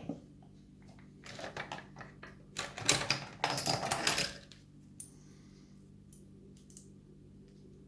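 Small metal clicks and clinks from a picked padlock and its tools being handled and set up for taking apart. The sound is a busy clatter from about one to four seconds in, then a few light ticks.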